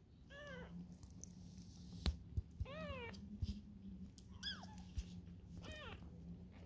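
A very young bottle-fed kitten mewing four times in short, high cries that rise and fall in pitch, with a few faint clicks in between.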